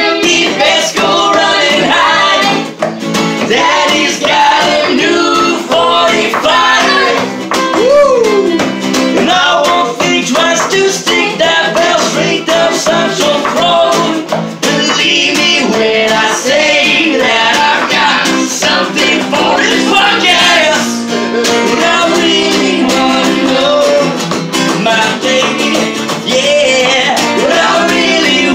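Acoustic guitar strummed steadily while a man and a woman sing together.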